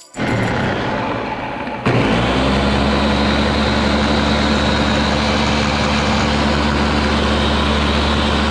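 Countertop blender motor running, pureeing chopped fruit, carrots and beets with juice into a thick drink; it starts at a lower speed and steps up to a louder, higher speed about two seconds in, then holds a steady hum.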